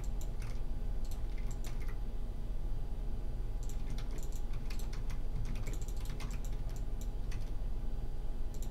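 Computer keyboard keystrokes, tapped in short scattered clusters as Blender shortcuts are entered, over a steady low hum.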